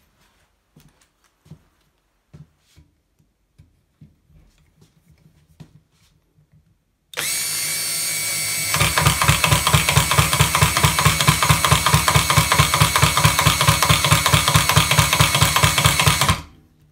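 A cordless drill-driver with a homemade impact attachment drives a wood screw into a wooden board. After a few faint handling clicks, the motor whirs up about seven seconds in, and about two seconds later the attachment starts hammering rapidly and evenly until it cuts off near the end. The screw goes in far too slowly, a sign that the attachment lacks impact speed.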